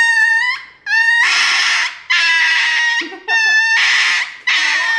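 A dog screaming in a run of about five long, high-pitched cries, each about a second long with short breaks between them.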